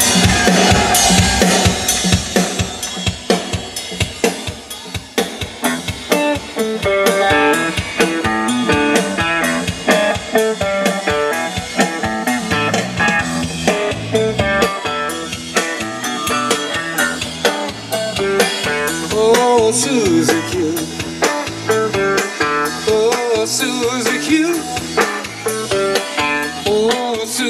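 A song with drums and guitar played loud through a custom car audio system: an Alpine 9835 head unit driving class A amplifiers, mid-bass drivers and two sets of subwoofers, one set playing 20 to 40 Hz and the other 40 to 80 Hz. The music has a steady beat and heavy bass.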